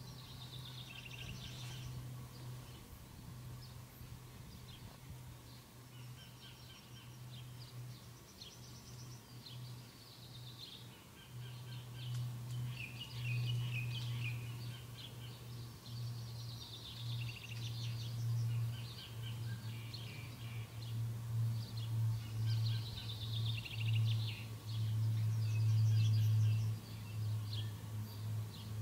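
Many birds chirping and singing, with repeated short chirps and falling calls, over a steady low hum that grows louder in the second half.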